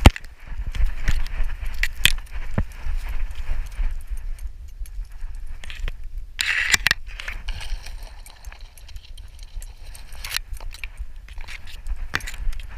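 Rattling, clicking and knocking from a chest-mounted action camera swinging on a loosely strapped dog harness, over low thumps from the dog's moving, as it pushes through grass. A brief louder rush of noise comes about six and a half seconds in.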